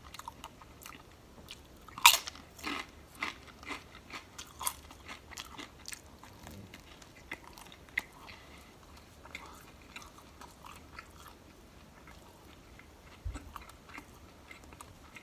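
Close-miked eating: a loud crunchy bite into a chip about two seconds in, then a few seconds of crisp crunching chews that thin out into softer, scattered chewing.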